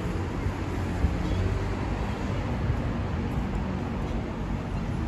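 City street ambience: a steady rumble of passing road traffic.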